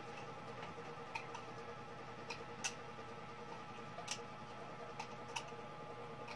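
Scissors snipping the thin metal of an empty aluminium drink can: a handful of short, sharp clicks, unevenly spaced about a second apart.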